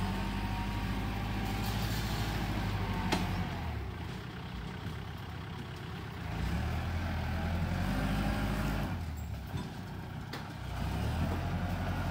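Diesel tractor engine running under load as it tows a set of discs through sandy soil, its note rising and falling as the load changes, louder as it passes. A single sharp click about three seconds in.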